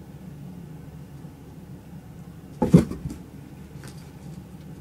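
A cat pouncing into a cardboard box: one short, loud cardboard thump and rustle a little past halfway, then a few light scrabbling clicks, over a steady low hum.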